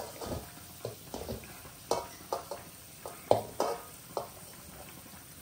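A metal spoon stirring and scraping in a cooking pot: a string of irregular clinks and scrapes, a few of them ringing briefly.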